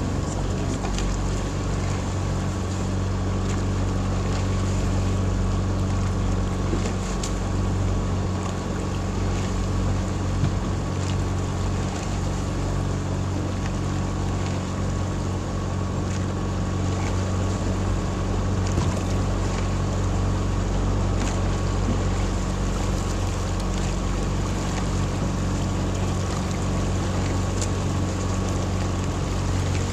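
Small motorboat's engine running steadily at an even cruising speed, mixed with rushing wind and water noise.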